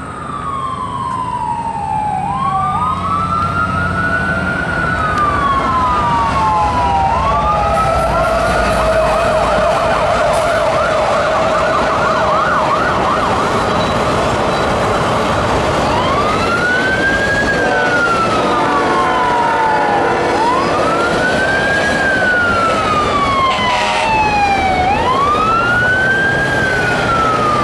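Fire truck siren wailing, gliding slowly up and down in pitch about every four to five seconds. It switches to a fast warbling yelp for a few seconds about a third of the way in, then returns to the slow wail.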